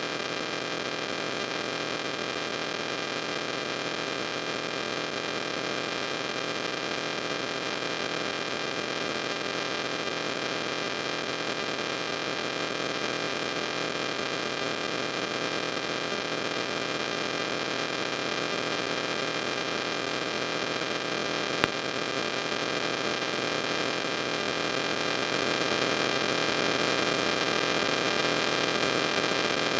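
Steady electrical hum and static hiss with several steady high tones, slowly growing louder, and a single click about twenty-two seconds in.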